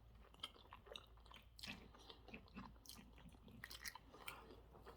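Faint chewing of spaghetti bolognese, with soft, irregular wet mouth clicks and smacks.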